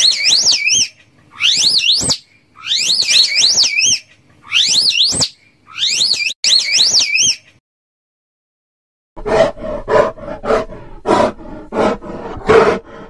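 Slow loris giving a run of high-pitched whistling calls, each warbling up and down in pitch, about one a second. After a short pause, a brown bear grunting and growling in quick succession.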